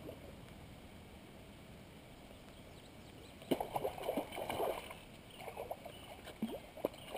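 A hooked fish splashing and thrashing in shallow water at the end of a fishing line, in irregular bursts starting about three and a half seconds in, over a steady low hiss.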